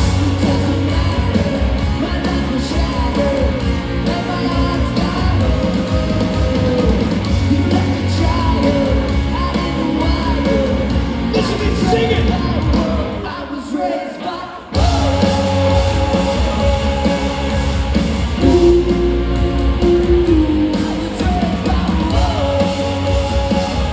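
Ska-punk band playing live, with electric guitar, bass and drums under a woman's lead vocal. A bit over halfway through, the band briefly drops out, then comes back in at full volume.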